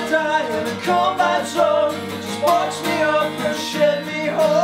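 Acoustic guitar strummed under a voice singing a melody with held, wavering notes: an acoustic folk-punk song.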